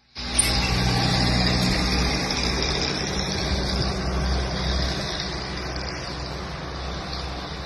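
Steady rushing noise of sandstorm wind with a low vehicle engine hum beneath it. It starts abruptly and eases a little after about five seconds.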